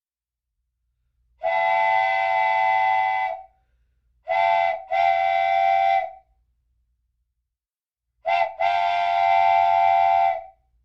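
Train whistle sounding a chord in repeated blasts: one long blast, then a short and a long, then another short and a long, each cut off cleanly.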